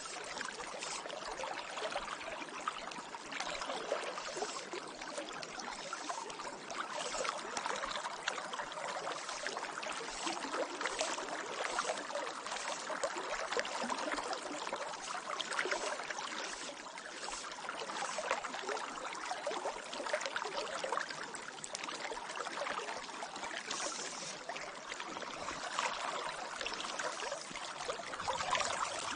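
A river's moving water, babbling steadily with many small splashes and trickles.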